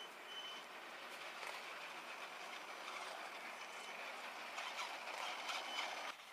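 Electric radio-controlled off-road trucks, among them a Traxxas Summit, driving over a dirt path: a steady whir of motors and gears with tyres crunching on soil and stones. Sharp clicks and knocks grow louder over the last couple of seconds as one truck passes close, and the sound cuts off suddenly near the end.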